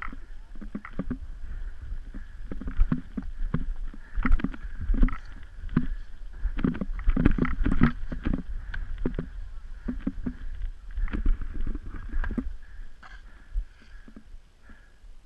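Irregular crunching, scraping and thumping of skis, poles and boots working through deep snow on a steep slope, with low rumble on the microphone; the strokes come thick for several seconds and then ease off near the end.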